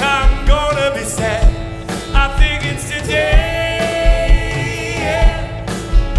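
Band playing a 1960s-style song: a lead vocal sung with vibrato, including one long held note, over a steady kick-drum beat.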